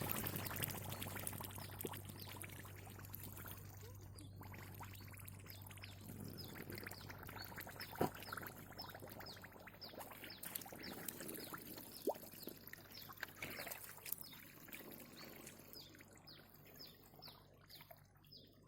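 Water pouring and splashing as a small pond is bailed out by hand, with a sharp knock about eight seconds in and another a few seconds later.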